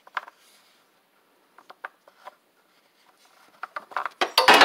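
Oil filler cap being turned and worked loose by a gloved hand: scattered small clicks and rubbing, then a louder run of scraping and clicking near the end.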